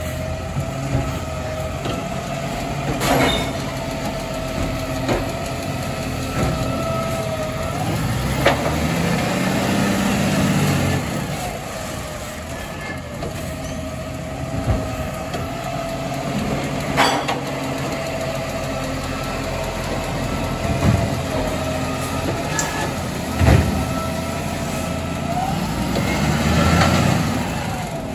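Volvo side-loader garbage truck's diesel engine running, with a steady whine over it. The engine swells in revs twice, about a third of the way in and near the end, as it works. Several sharp knocks come at intervals.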